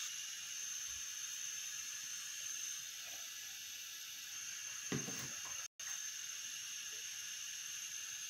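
Steady high-pitched hiss of background noise, with a soft knock about five seconds in and a brief dropout to silence just after it.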